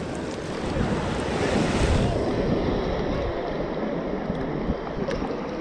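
Ocean surf on the beach: a wave breaks and rushes in about a second in, then eases off, over a steady wash of water, with wind buffeting the microphone.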